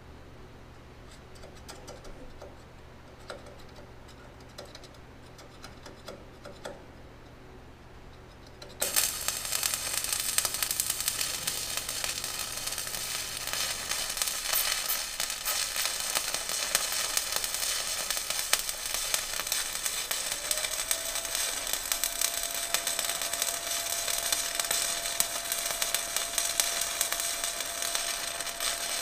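Stick welding arc: after a quiet stretch with a low hum and a few light clicks, the arc strikes suddenly about nine seconds in and crackles and sizzles steadily for the rest. A faint steady whine joins in about two-thirds of the way through.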